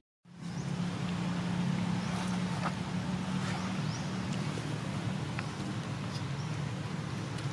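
A steady low motor drone, like an engine running, with a few faint short chirps above it. The sound drops out for an instant at the very start.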